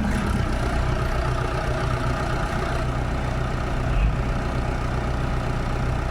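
Heavy diesel engine idling steadily, with a short low thud about four seconds in.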